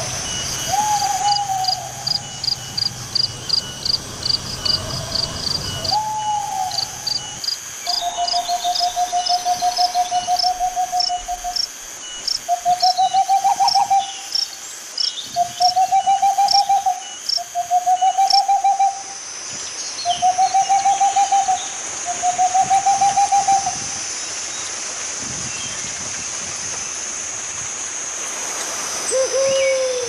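Owl calling: a series of about eight long, wavering hoots, one drawn out for about four seconds, then a lower, falling call near the end. Quick, evenly repeated high chirps sound through the first half, over a steady high insect buzz.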